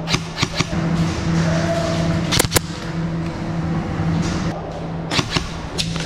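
Airsoft guns firing: a few sharp pops in short clusters just after the start, around two and a half seconds in and again about five seconds in, over a steady low hum.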